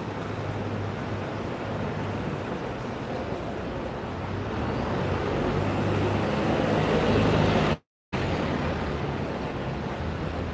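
City street traffic: engines running with a low hum, swelling louder over a few seconds, then cut off by a brief dropout in the recording about eight seconds in before carrying on.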